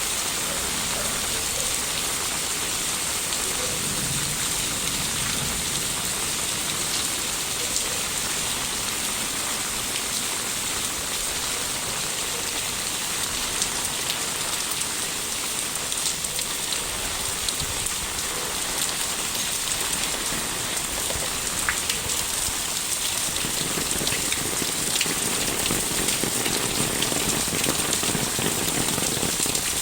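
Steady rain falling, a constant hiss scattered with the ticks of single drops. About two-thirds of the way through, a lower, fuller patter joins in.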